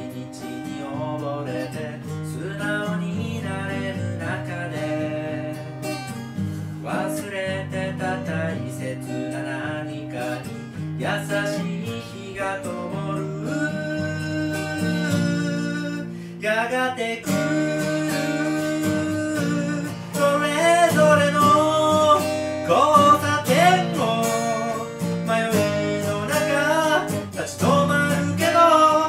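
Martin D-28 steel-string acoustic guitar strummed in chords, with a man singing along; the singing and playing grow louder about two-thirds of the way in.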